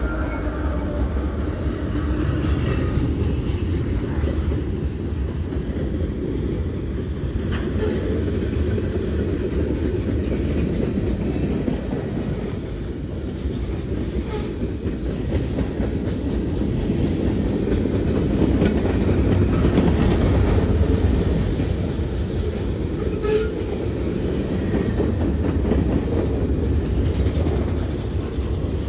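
Freight train rolling past at close range: the steady rumble and clatter of the freight cars' steel wheels on the rails, with scattered clicks. In the first moment the engine of the trailing GE AC4400CW (CW44AC) diesel locomotive fades as it goes by.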